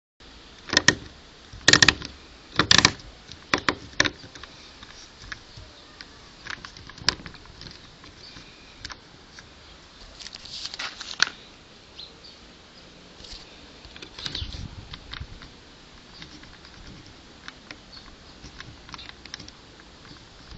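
Irregular clicks and knocks, loudest and closest together in the first four seconds, then sparser taps with a little rustling.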